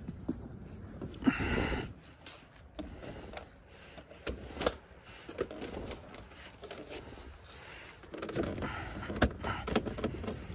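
Handling noises as a leather touring seat is set onto a Honda Goldwing GL1500 and pushed into place: a short rustle, scattered knocks and clicks, then a longer stretch of rustling with knocks near the end.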